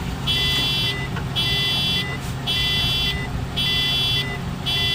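An electronic warning beeper sounding a buzzy high tone over and over, about once a second, five times, over a steady low hum.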